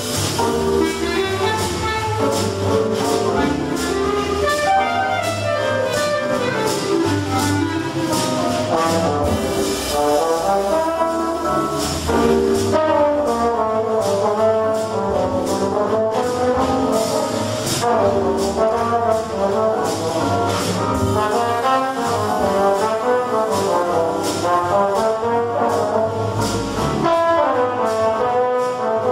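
Ten-piece jazz band playing live, several instruments at once with the brass section to the fore.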